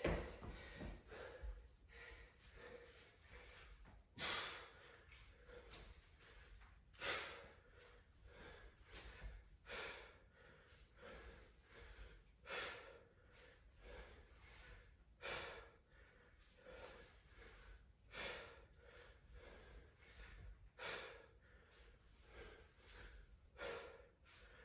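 A man breathing hard from exertion during alternating dumbbell snatches: sharp, forceful exhalations about every three seconds, with quicker breaths between.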